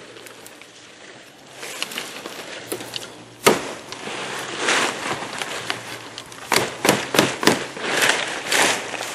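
Palm fronds rustling and crackling as they are laid onto the thatch, with a sharp knock about three and a half seconds in and a quick run of four hammer blows about two-thirds of the way through, nailing the fronds in place.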